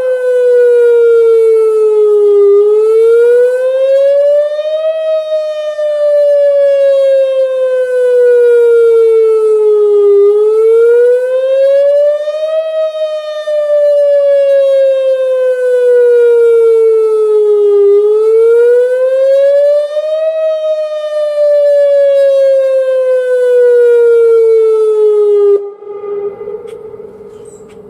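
Whelen WPS-2905 electronic outdoor warning siren sounding a wail: a loud pitched tone that rises over about two and a half seconds and falls over about five, repeating. It cuts off suddenly about 26 seconds in, leaving a short fading tail.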